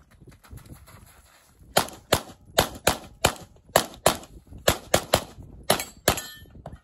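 Competition pistol fired rapidly in quick pairs, about a dozen shots starting a little under two seconds in, the double-taps of engaging each target twice.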